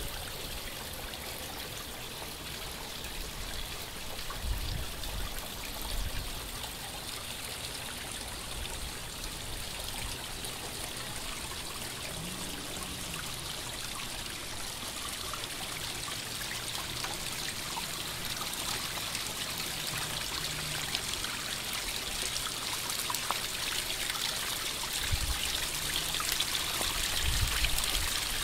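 Water trickling and splashing steadily down a small rock waterfall into a garden fish pond, growing louder toward the end. A few short low thumps sound now and then.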